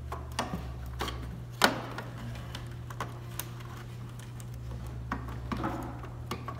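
Scattered clicks and knocks of plastic FasTrack model railroad track sections being handled and separated, the loudest knock about one and a half seconds in, over a steady low hum.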